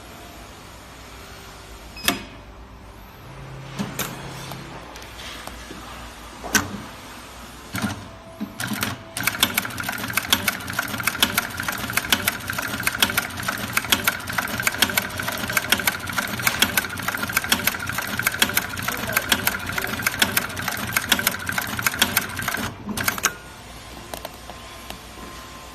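Industrial post-bed double-needle compound-feed sewing machine: a few separate clicks and a short motor hum, then about fourteen seconds of continuous fast stitching, a steady whine with rapid even needle clicks, which stops abruptly near the end.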